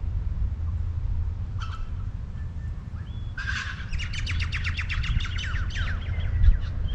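A bird calling: a short call about a second and a half in, then a fast run of rapid chirps from about three and a half seconds in that tails off into fainter calls, over a steady low rumble.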